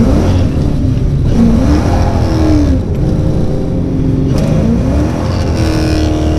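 Small-block Ford 302 (5.0) V8 with a Comp Cams XE266HR camshaft accelerating, heard from inside the cabin. The engine note climbs and falls in pitch several times over a heavy low rumble.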